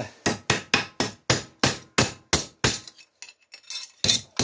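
Ball-pein hammer striking a MIG-welded steel sheet on the anvil of a bench vice, steady blows about three or four a second. The blows break off for about a second late on, then start again. This is planishing the weld: tapping directly on the bead stretches it back out to take out the shrinkage distortion.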